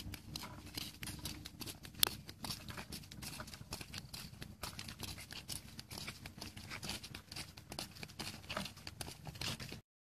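People walking on a dirt road carrying plastic buckets and a hoe: irregular light footsteps, scuffs and clicks, with one sharper click about two seconds in. The sound cuts off abruptly near the end.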